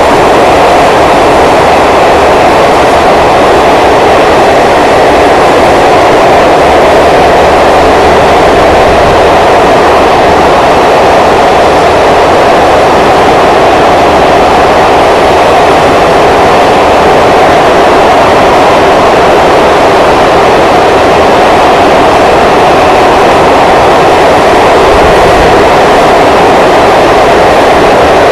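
Passenger train running through a long rail tunnel, heard from inside the coach: a loud, steady noise of the running train closed in by the tunnel, unchanging throughout.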